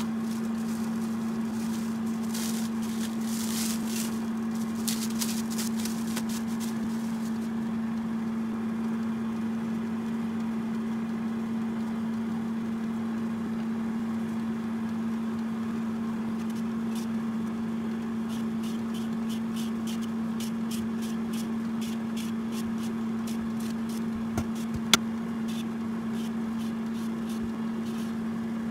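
Vegetable peeler shaving strips off a daikon radish, in quick light scraping strokes that come in two runs, a few seconds in and again through the last third, with a single sharp click near the end. A steady low hum runs underneath.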